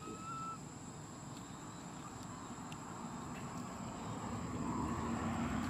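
Outdoor forest ambience: a steady high insect drone, a short whistled call that rises and levels off right at the start, and a low rumble building toward the end.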